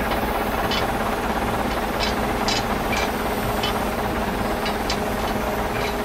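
Model tractor with a log-loader crane: a steady engine-like running noise, with scattered light clicks from the moving crane and logs.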